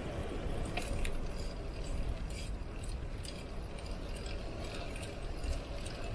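A Trek cross bike rattling and clinking in quick, irregular clicks as it rolls over the road, over a steady low rumble of riding noise.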